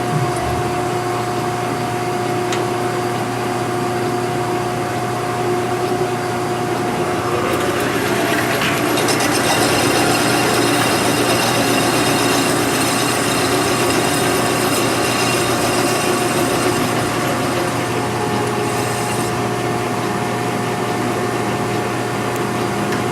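Metal lathe running with a steady motor hum. From about eight seconds in to about nineteen, a harsher scraping cutting noise rises over the hum, then drops away.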